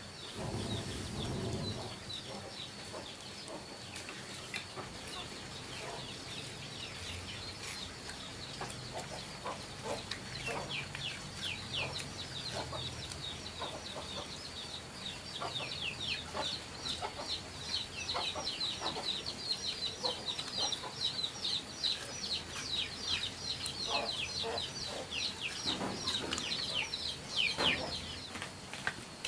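Chickens peeping: many short, high chirps that fall in pitch, growing thicker and faster in the second half and stopping shortly before the end.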